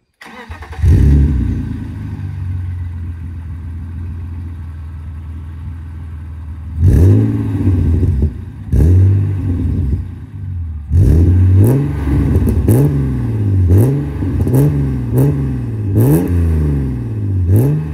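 BMW E36 328i's 2.8-litre straight-six starting up through an Eisenmann Race rear silencer with Schmiedmann manifold and catalytic converters, flaring briefly and settling to idle. After two single throttle blips it is revved in a string of quick blips, about one a second, in the second half.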